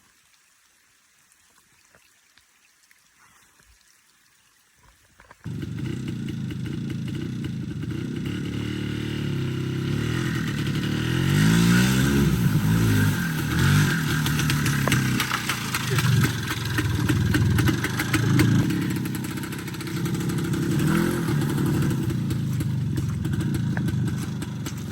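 Near silence for about five seconds, then suddenly a vehicle engine running, revving up and down with its pitch rising and falling.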